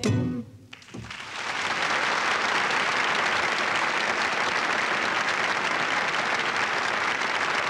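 A concert audience applauding after a song: the last of the guitar and singing cuts off at the start, and about a second later steady clapping begins and keeps going.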